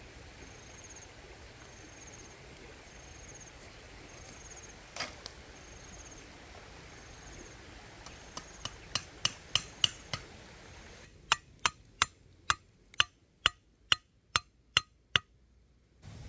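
Two runs of sharp, evenly spaced chopping strikes: the first at about three a second, growing louder, then after a short pause about ten crisp strikes a little over two a second. A faint insect chirps in a steady beat beforehand.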